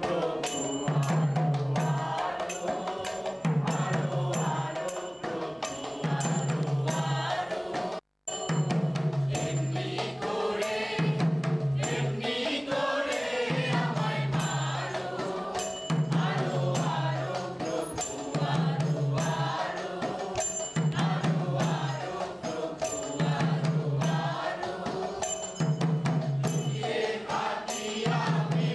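A chorus of voices chanting a song over steady percussion, with a low note coming round about every two and a half seconds and sharp ringing strikes between. The sound cuts out for an instant about eight seconds in.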